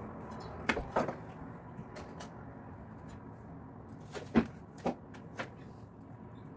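A few light knocks and clicks against a glass baking dish as hands press vegetable pieces into raw mince: two around a second in, then a cluster of four from about four to five and a half seconds in. They sit over a steady low hum.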